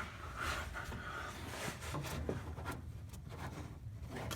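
Faint rubbing and light ticking noises.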